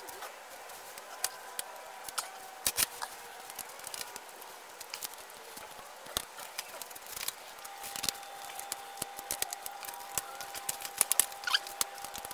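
Irregular clicks and knocks of a 26cc two-stroke weed eater engine's plastic shroud, screws and tools being handled on a concrete floor as the engine is taken apart.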